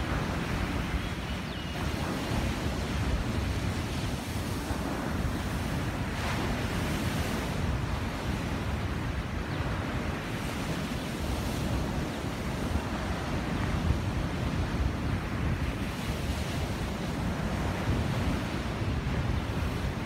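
Surf breaking and washing up a sandy beach in slow, repeated swells, with gusty wind rumbling on the microphone.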